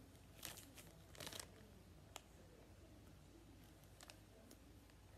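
Faint rustling and crinkling as a strawberry-shaped foam squishy is squeezed in the hands, with two short bursts about half a second and a second and a quarter in, then a few faint clicks over near silence.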